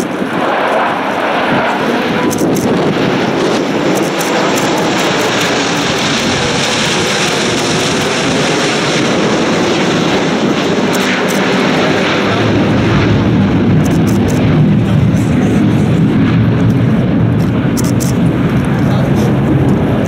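Jet noise from a formation of four Chengdu J-10 fighters flying over: a steady, continuous rushing that grows louder and deeper about two-thirds of the way through.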